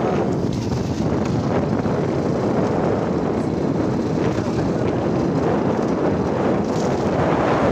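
Steady wind rushing over the microphone of a moving vehicle, mixed with the vehicle's running noise.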